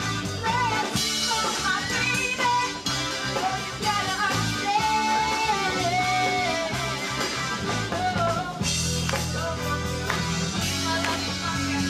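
Upbeat pop-rock musical-theatre number: a girl's voice singing lead over a rock band accompaniment, with a fuller, heavier bass coming in near the end.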